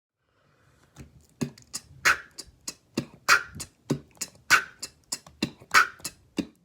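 Solo vocal beatbox drum line: mouth kick, hi-hat and rim/snare sounds in a syncopated rock-style groove ("dum te katze te dum katze"). It starts about a second in, with the loudest snare hits about every second and a quarter.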